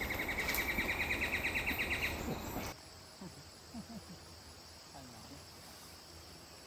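A rapid pulsed animal trill, rising slightly in pitch, stops about two seconds in. Then comes a faint steady background of insects with a high thin hum.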